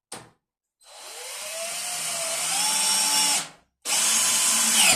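Electric drill-driver driving a screw: a short blip, then a run of about two and a half seconds with the motor whine rising, a brief pause, and a second run of about a second that winds down with a falling whine.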